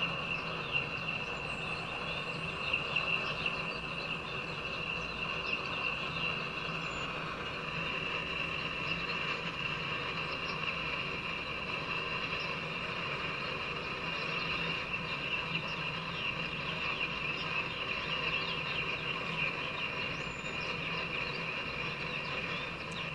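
Freight train of black tank cars rolling steadily past, heard as played back through a laptop's speakers and re-recorded, with a constant high whine over the rolling noise.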